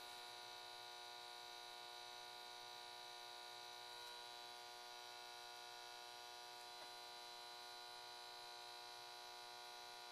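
Near silence with a faint, steady electrical hum made of several high tones.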